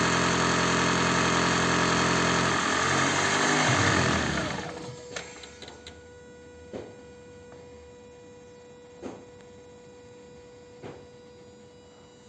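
Toyota Prius petrol engine running at cold-start idle with a rattle that the mechanic puts down to the damper, then shutting off about four seconds in, its pitch wavering just before it stops. A few faint clicks follow.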